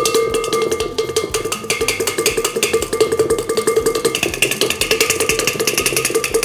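Fine-mesh metal sieve being tapped rapidly and steadily to sift icing sugar into a bowl: a fast rattle of metal taps with a ringing metallic tone under it. The tapping fades out near the end.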